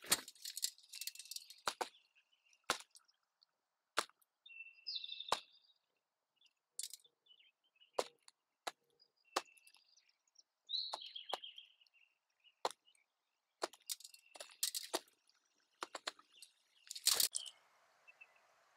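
Blue jay at a seed feeder: a string of sharp cracks and taps at irregular intervals, mixed with a few short, high chirps. A louder rustling burst comes near the end.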